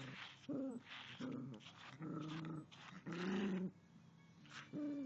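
Yorkshire terrier growling at a dog brush: a string of short growls, with a pause of about a second near the end.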